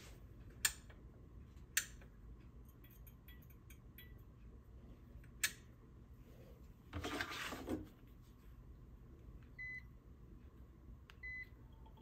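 A few sharp clicks, a brief scuffing noise about seven seconds in, then two short high beeps about a second and a half apart from a Bell + Howell socket fan light, the unit answering remote commands as its light comes on and its fan is set going.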